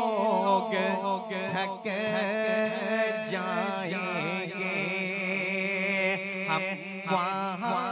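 Male naat reciter singing a long, wavering, ornamented line without words, over a steady low drone.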